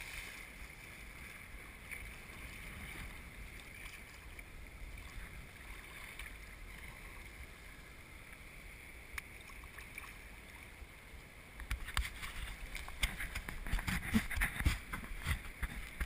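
Choppy water lapping and washing against a sea kayak's hull, with a steady low rush of wind and water. Near the end it turns into louder, irregular splashing and crackling as waves slap over the bow.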